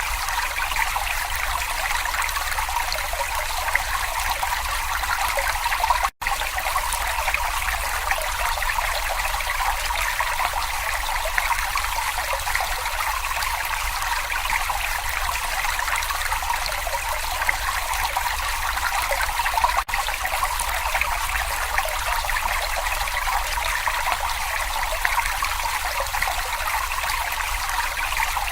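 Shallow brook babbling and trickling over stones in a steady, even stream of water sound, with a momentary break about six seconds in.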